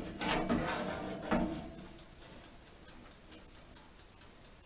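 Fermented fireweed leaves rustling and scraping as a hand stirs them in a pan inside a countertop electric oven, with a few knocks in the first second and a half. After that only a faint, rapid ticking remains, typical of the oven's wind-up mechanical timer running.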